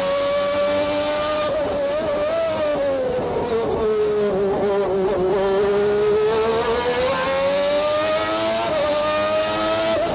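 McLaren-Honda V12 Formula 1 engine heard onboard at racing speed. Its high-pitched note wavers and falls over a couple of seconds as the car slows, then climbs steadily under acceleration, with a brief dip near the end like a gear change. A rushing wind hiss rides over it at the fastest moments.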